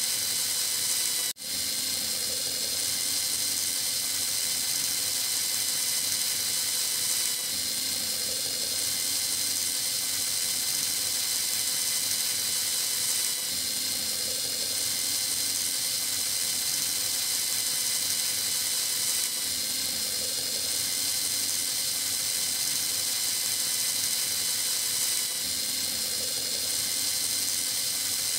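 Small electric gear motor of a miniature chaff cutter running steadily with a high-pitched whir and hiss. The sound breaks off for an instant about a second in.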